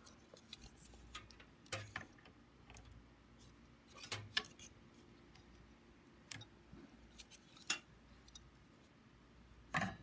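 Scattered light clicks and taps of computer parts being handled as a CPU cooling fan is fitted back onto its heatsink, with a sharper click about three-quarters of the way through and a few more near the end.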